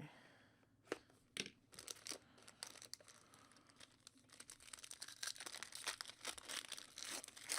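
Trading cards and their packaging being handled: soft rustling and crinkling with many small clicks, busier in the second half.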